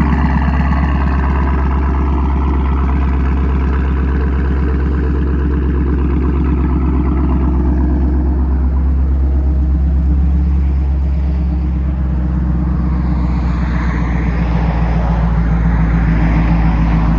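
2019 Chevrolet Camaro SS's 6.2-litre V8 running at a steady idle through its exhaust, a few seconds after a push-button start.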